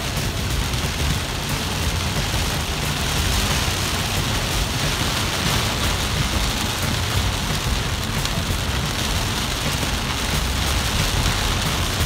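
Heavy rain pelting a moving car's windshield and roof, heard from inside the cabin as a steady hiss over a low road rumble.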